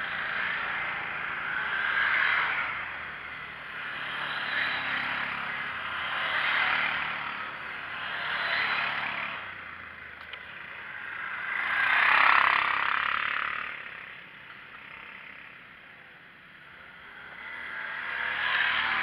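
Quad bikes (ATVs) driving past one after another, each one's engine and tyres rising and fading as it goes by. The loudest pass comes about twelve seconds in.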